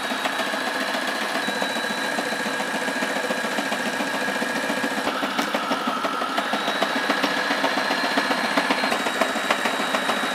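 Sailrite sewing machine stitching fabric: its electric motor runs steadily under a fast, even rattle of needle strokes, with a thin whine.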